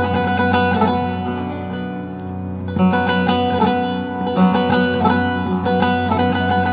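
Background music on a plucked string instrument: a melody of quick plucked notes over a steady low drone.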